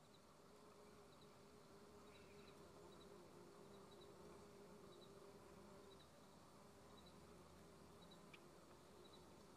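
Faint, steady buzzing of bumblebees, with soft high double chirps about once a second.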